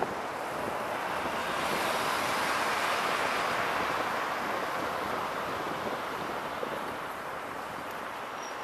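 Wind rushing over a car-roof-mounted camera's microphone, mixed with the car's road and tyre noise as it drives. The hiss swells in the middle and eases off toward the end.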